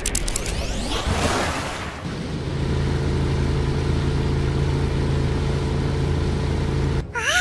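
Cartoon sound effect of a train engine running with a steady low hum, after a rush of noise in the first two seconds. Near the end it gives way to quick high gliding tones.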